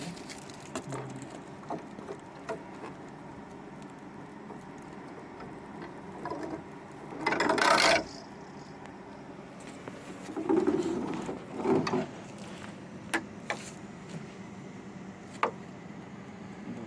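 Unpacking and handling noises: scattered clicks and knocks, with a loud rustle of packaging about seven seconds in and another shorter one near eleven seconds.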